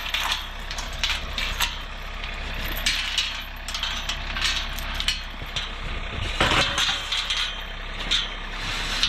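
John Deere compact tractor's diesel engine running steadily as it drives through snow, with a few clanks and rattles, the plainest about six and a half seconds in.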